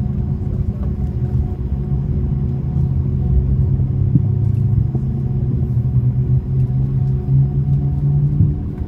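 Cabin noise aboard an Airbus A330-300: a steady low rumble from its engines and airflow, with a few steady hum tones running under it.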